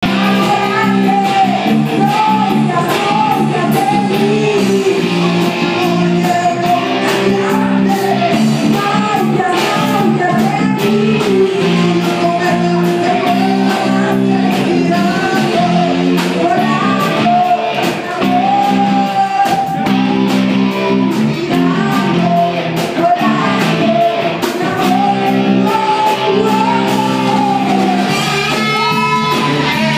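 Small live rock band playing: a sung melody over electric guitar, bass guitar and a drum kit with steady cymbal and drum strikes.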